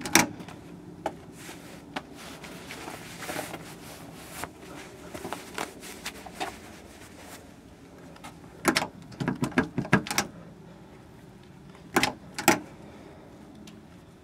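Irregular knocks, clicks and rustles of things being handled and bumped. A quick flurry of clicks comes about nine seconds in, and two sharp knocks follow near the end.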